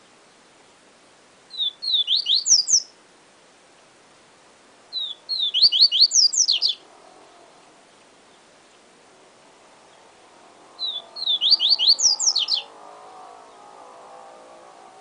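Papa-capim seedeater singing its 'siu siu professor' song. Three short phrases come a few seconds apart, each opening with a couple of short high notes and running into a fast string of sharp whistled strokes.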